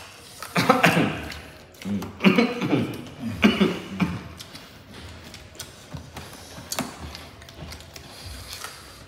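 Close-up eating sounds: chewing and crunching as people eat fried chicken and raw long beans by hand. Three short, loud voice sounds come in the first four seconds, then quieter chewing clicks.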